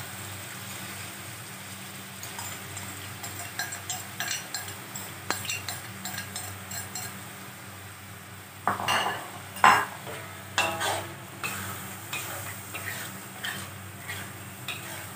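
Metal spatula scraping and knocking against an aluminium wok as curry paste fries in oil, with a light sizzle and a steady low hum underneath. The loudest knocks come about nine to ten seconds in.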